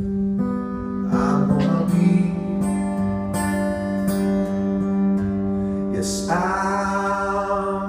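Live acoustic guitar music with long held notes, and a new wavering held note coming in about six seconds in.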